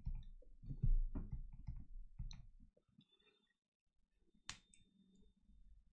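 Stylus tapping and clicking on a tablet screen during handwriting: a quick run of small clicks and soft knocks, then a pause and one sharper click about four and a half seconds in.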